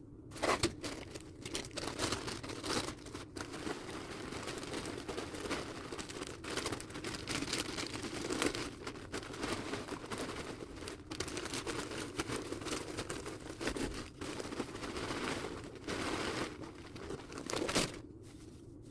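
Dry small-animal bedding (aspen shavings, hay and paper bedding) being handled and mixed by hand: a continuous crinkling rustle with short crunches, which dies down near the end.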